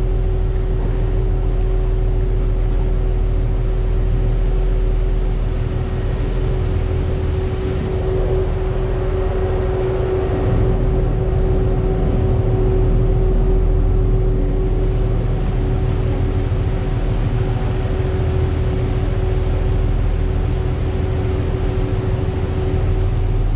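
Engines of a large party fishing boat running steadily underway, a deep rumble with a constant hum over it.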